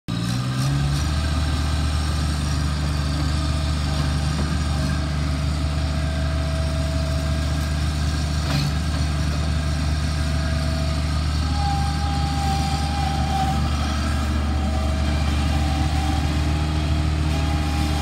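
Bobcat MT55 mini track loader's diesel engine running steadily while the machine drives and raises and lowers its bucket; the engine revs up in the first second, and a faint whine comes and goes above it.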